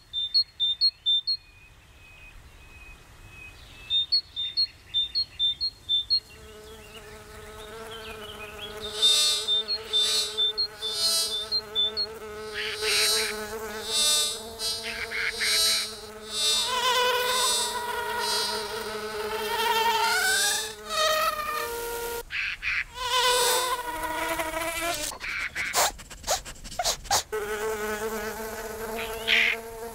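Buzzing of a flying insect's wings, a pitched drone that swoops up and down as it darts about and drops out briefly about two-thirds of the way through. Clusters of short, high chirping pips come before the buzz sets in.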